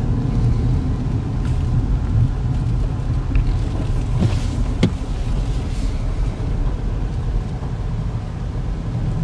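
Inside the cabin of a 2014 GMC Terrain with its 2.4-liter four-cylinder, slowing down and turning around on a wet road: a steady low engine and road rumble, with a couple of faint clicks about midway.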